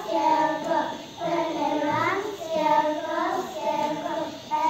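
A group of young children singing together in short phrases, with brief breaths between them.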